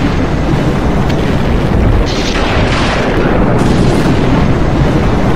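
Storm wind blowing hard against the microphone: a loud, continuous, deep rumble with no breaks.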